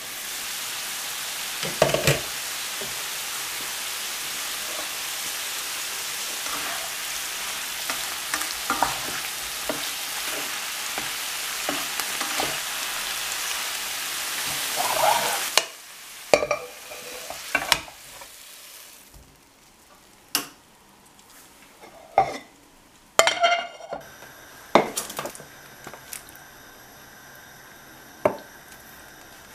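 Broccoli and cauliflower frying in a nonstick pan: a steady sizzle with knocks and scrapes of a spatula stirring. About halfway through the sizzle stops, leaving scattered knocks and clinks of utensils against the pan.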